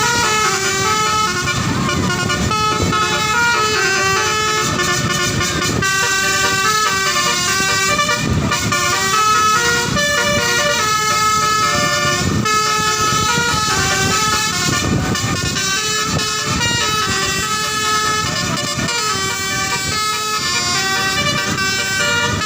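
Indonesian bus 'telolet' (basuri) multi-tone air horn playing a melody, one held note after another without a break.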